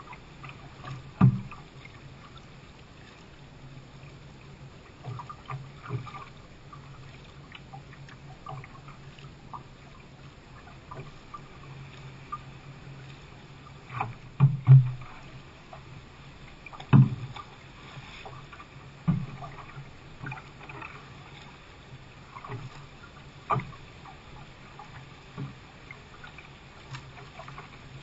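Paddling a plastic canoe on the sea: irregular paddle splashes and water slapping the hull, with sharp knocks every few seconds over a low steady hum. The loudest knocks come near the middle.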